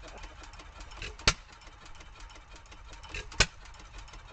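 Fairbanks Morse hit-and-miss engine running. It fires twice, about two seconds apart, each firing a sharp bang, and coasts between firings with a low rumble and faint ticking.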